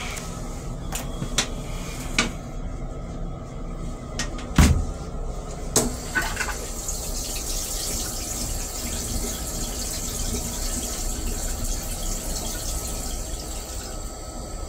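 Stainless-steel railcar toilet flushing: a few sharp clicks and one loud thump in the first six seconds, then water rushing into the bowl until the end, over a steady low rumble.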